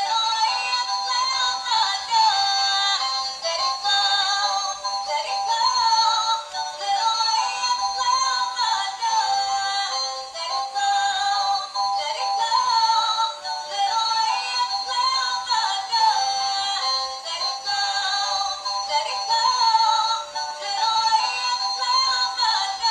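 Tinny electronic melody with no bass, playing on continuously.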